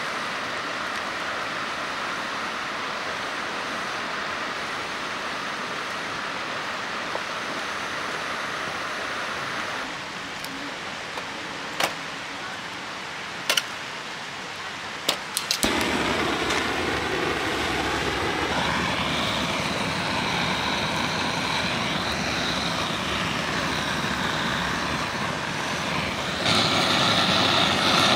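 A steady hiss of a portable gas stove with a pot of soup at the boil. Then a few sharp clicks, and a gas torch runs with a steady roar as it lights firewood in a fire pit, louder near the end.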